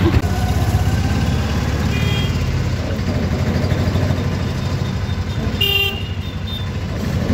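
Auto-rickshaw engine running with a fast, even pulsing rumble, heard from inside the moving auto. A vehicle horn honks briefly just before six seconds, with a fainter short tone about two seconds in.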